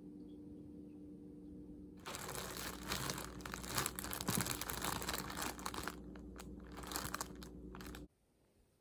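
A steady low hum, then about two seconds in a dense crinkling, crackling noise full of small sharp ticks that runs for about six seconds and cuts off abruptly.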